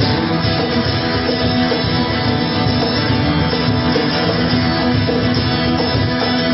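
Live band playing during a sound check, with guitar to the fore and a steady, loud, full sound.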